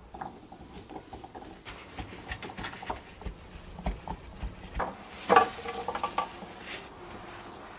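Peeled garlic cloves being wiped dry and moved about by hand on paper towel in a tray: scattered light clicks and knocks of cloves against each other and the tray, the loudest about five seconds in.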